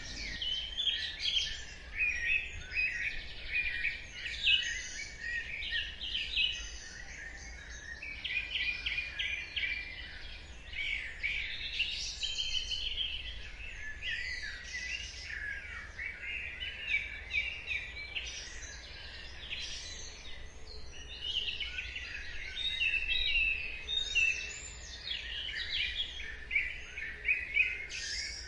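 Dawn chorus: many birds chirping and trilling at once, overlapping calls over a steady low background hum.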